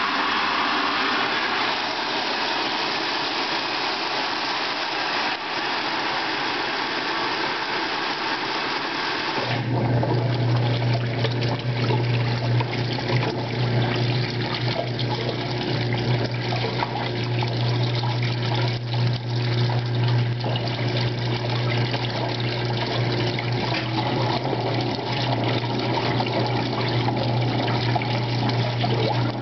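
1958 General Electric Filter-Flo washing machine filling its tub: a steady rush of water pouring in. About ten seconds in, the machine's motor starts with a steady low hum, and the water keeps splashing in the tub.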